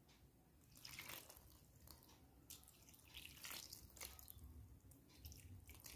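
Faint trickling and dripping of water poured onto wheat flour in a steel bowl, in a few short irregular splashes as it is stirred in.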